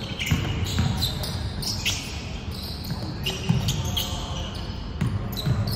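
A basketball bouncing several times on a hardwood gym floor, with short high sneaker squeaks from players running and cutting, all echoing in a large sports hall.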